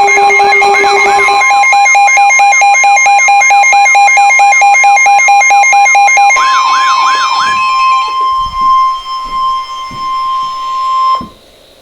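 Weather alert tones sounding together: overlapping electronic beeps, fast warbling siren-like sweeps and steady tones. A little over six seconds in most of them stop, leaving one steady alert tone just above 1 kHz, which cuts off sharply near the end.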